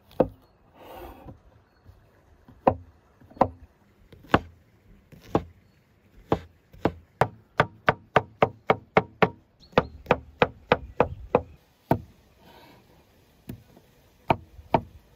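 Knife chopping button mushrooms on a wooden cutting board: sharp knocks of the blade on the board, a few single cuts at first, then a quick run of about four chops a second in the middle, then a few more spaced-out chops near the end.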